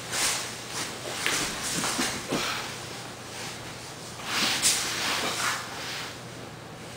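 Grapplers breathing hard in repeated short, irregular hissing breaths, with their bodies and clothing scuffing and shifting on a foam mat.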